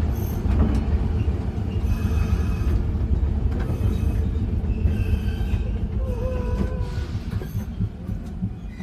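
Randen (Keifuku Electric Railroad) tram car running along the track, heard from inside at the front: a steady low rumble of wheels and running gear, with short high squeals of the wheels on the rails now and then.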